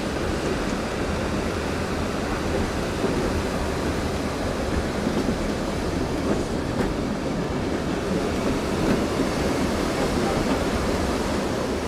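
Steady rumble of a mountain railway train rolling along the track, mixed with the rush of a whitewater river below.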